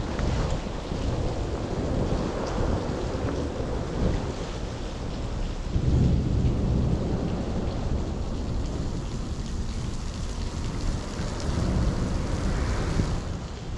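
Heavy rain pattering and splashing steadily, with a low rumble underneath that swells loudest about six seconds in.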